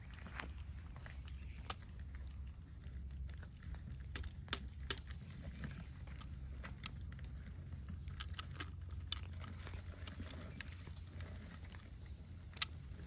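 A stray cat chewing cat food: irregular short clicks of eating, scattered and uneven, over a steady low hum.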